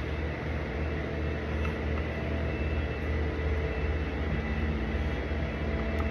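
Steady low rumble of heavy road-resurfacing machinery working on the street.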